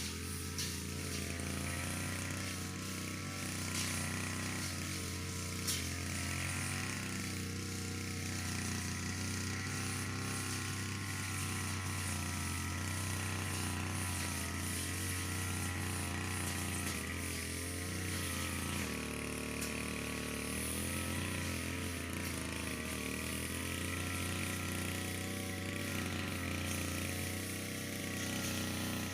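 Brush cutter engine running steadily while cutting grass, its speed shifting slightly up and down, with a small drop about two-thirds of the way through.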